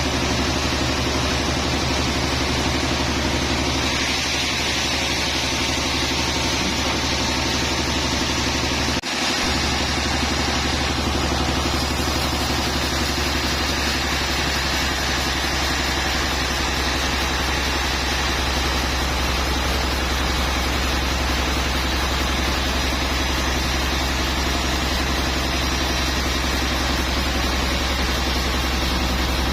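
Sawmill machinery's engine running steadily: a continuous low hum with a momentary dip about nine seconds in.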